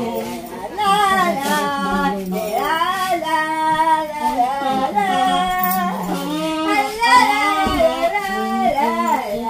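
An elderly woman singing in a high, thin voice, holding drawn-out notes that bend up and down.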